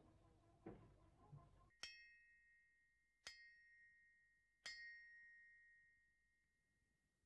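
A bell-like metallic ring struck three times, about a second and a half apart. Each strike sets off a clear ringing tone that fades away slowly.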